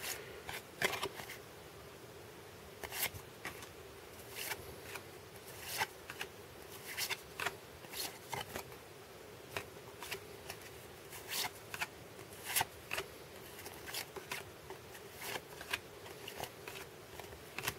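1992 Upper Deck baseball cards being flipped through by hand one at a time, the card stock sliding and flicking in soft, irregular ticks.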